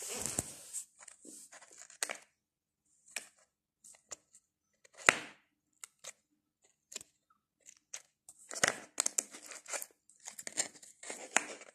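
Green glitter slime being pressed and pulled by fingers in a plastic tub, giving scattered sticky clicks and pops with short crackling bursts, busiest in the second half.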